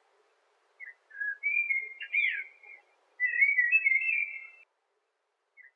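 High, clear whistled chirps and warbles like birdsong. There is a short chirp about a second in, a run of warbles with a quick up-and-down swoop around two seconds in, and a longer warbling phrase from about three to four and a half seconds.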